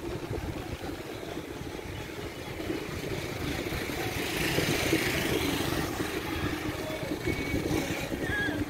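A car's engine running close by, growing louder about halfway through as the car is passed, over a steady low rush of wind on the microphone of a moving bicycle.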